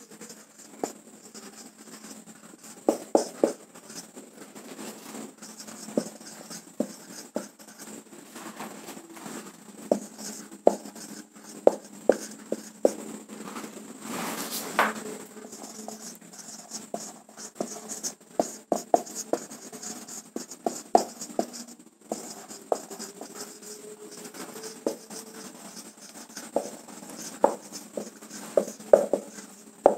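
Felt-tip marker writing on a whiteboard: irregular taps and short strokes of the tip on the board, with one longer stroke about halfway through.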